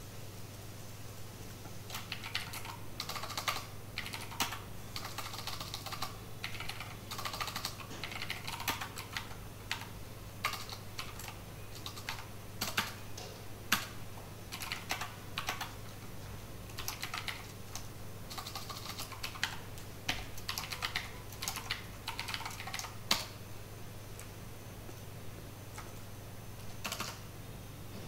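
Typing on a computer keyboard in quick bursts of keystrokes with short pauses between, stopping about 23 seconds in, with one last brief flurry near the end. A steady low hum sits underneath.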